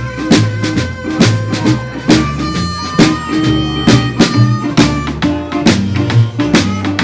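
Live acoustic blues band playing an instrumental passage: a stick-played drum keeps a steady beat of about two hits a second under an upright bass line and guitar, with a held, reedy harmonica lead on top.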